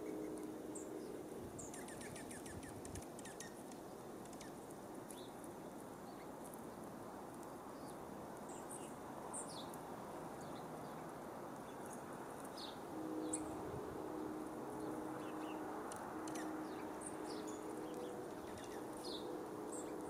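Small songbirds at a seed feeder giving short, high chip notes, scattered and irregular, over a steady outdoor hiss. A low, steady hum of several tones is there at the start, drops out after a second or two, and returns past the middle.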